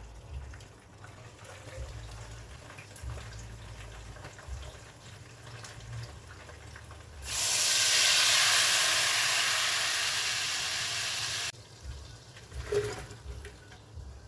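Running water, a steady hiss that starts about seven seconds in, fades slightly, and shuts off abruptly about four seconds later.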